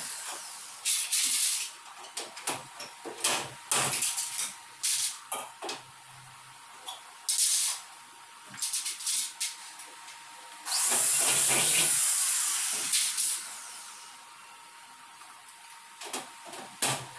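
Power drill running in short bursts on an aluminum frame post, the longest burst about two-thirds of the way through. Clicks and knocks of aluminum framing being handled fall between the bursts.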